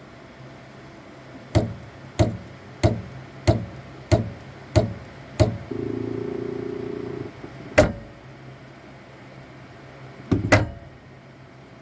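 Elegoo Saturn 4 Ultra 16K resin 3D printer knocking: seven loud knocks about two-thirds of a second apart, then a motor hums for over a second, then a single knock and a quick double knock near the end, over a steady low fan hum. This is the faulty knocking the printer makes as its build platform drives up before printing.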